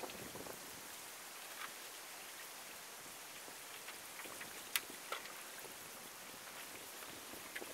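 Faint, steady hiss of wind and small waves lapping on a lakeshore, with a few faint sharp ticks scattered through it.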